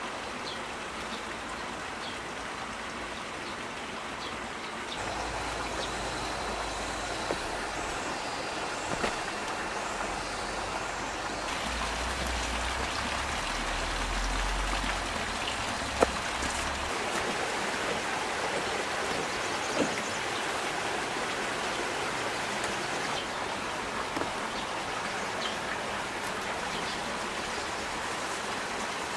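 Steady heavy rain falling, a continuous even hiss, with a low rumble for a stretch in the middle and a few sharp knocks.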